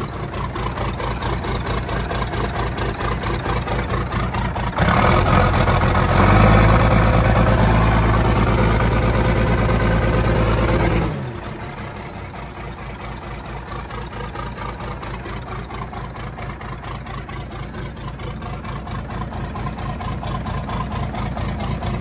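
Allis-Chalmers 7G crawler loader's engine running. About five seconds in it is revved up and held at higher speed, then drops back to idle about eleven seconds in.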